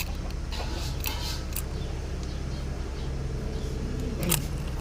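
Cucak ranting bird giving a few short, sharp calls around the first second and one near the end, over a steady low hum.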